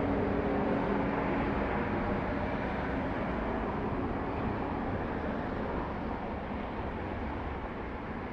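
Street traffic: a steady rushing noise, with a passing vehicle's hum fading away in the first couple of seconds.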